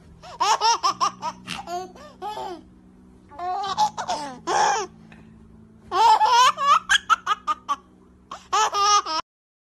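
A woman laughing hard in rapid high-pitched bursts, in four bouts with short breaks between them, cutting off suddenly near the end.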